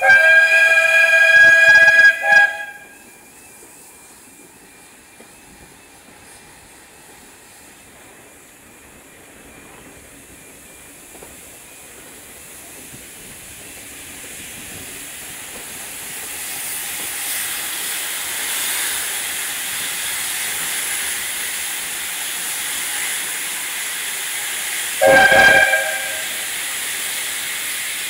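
Steam whistle of GWR 94xx pannier tank 9466, a long blast of about two and a half seconds and a second short blast near the end, sounded as a warning for the whistle board and the level crossing ahead. Between the blasts a hiss of steam builds up steadily as the engine works.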